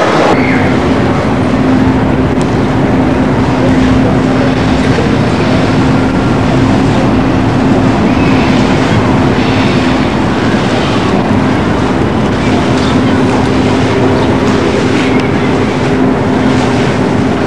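Loud steady outdoor noise with a low steady hum, like an engine running, and a few faint ticks.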